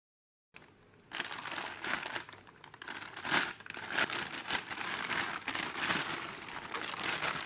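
Thin clear plastic bag crinkling and rustling as it is pulled off a CPU cooler's heatsink. The crinkling starts about a second in and goes on with many small crackles.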